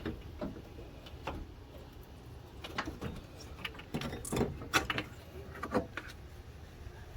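Irregular metallic clinks and knocks of hand tools and parts being handled during car radiator work, about ten scattered strikes over several seconds over a low background hum.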